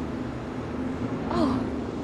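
Steady city street ambience with the low hum of traffic. About a second and a half in, a person makes one short voiced sound.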